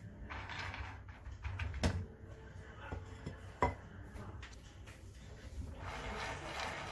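Almonds being dry-toasted in a frying pan: they rattle and scrape as they are tipped in and stirred. A utensil knocks sharply against the pan twice, about two and three and a half seconds in.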